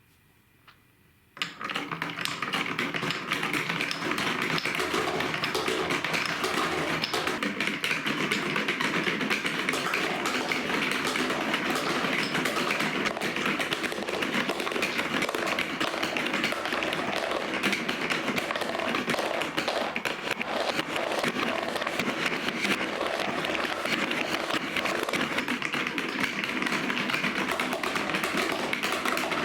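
Many marbles rolling and clattering down a plastic marble-run track, a dense rattle of clicks that starts suddenly about a second and a half in.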